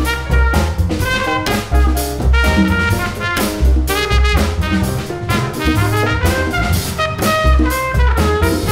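Small jazz band playing live: a trumpet carries the melody over upright bass notes, with drums and congas keeping a steady beat.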